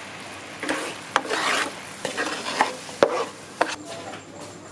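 A spatula stirring and scraping a bubbling sauce in a frying pan: a steady sizzle with about seven sharp scrapes and knocks against the pan.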